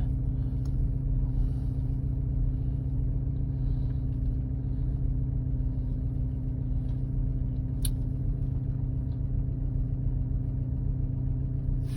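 Porsche Cayenne engine idling steadily just after start-up, revs settling near 1000 rpm, heard from inside the cabin. The owner is unsure whether a knock in it is a fault or normal running. There is a single sharp click about eight seconds in.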